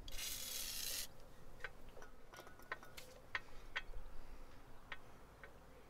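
WD-40 aerosol can spraying a short burst of about a second, lubricating the strut where it slides into the steering knuckle collar. This is followed by a series of light, irregular metallic clicks.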